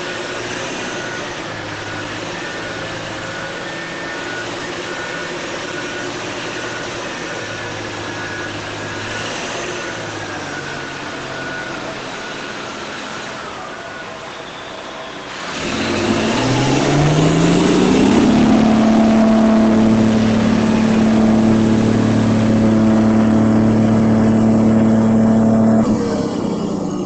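Remote-control construction model running, with a steady mechanical noise and a faint regular beeping that stops after several seconds. About fifteen seconds in, a louder motor whine rises in pitch, holds steady for about eight seconds, then drops away near the end.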